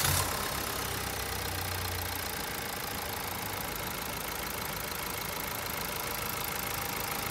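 Mazda SKYACTIV engine idling steadily. A low hum sits under it for about the first two seconds, then fades.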